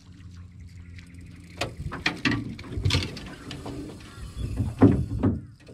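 Irregular knocks and thumps on an aluminium boat's deck and hull, the loudest near the end, as someone moves across the boat and grabs a rod from its holder.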